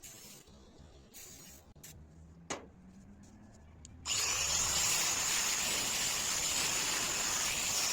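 A few light clicks and one sharp knock, then about four seconds in a machine starts up suddenly and runs steadily with a loud high hiss.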